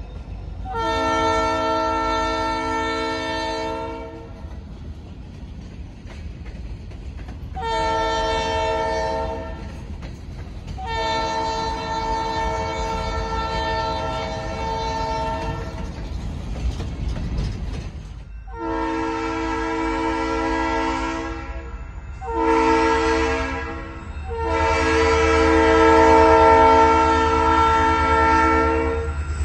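Freight locomotive air horn sounding a series of blasts: three within the first 16 seconds, then three more after a pause, the fifth short and the last the longest and loudest. Under the horn runs the low rumble and clatter of freight cars rolling past on the rails.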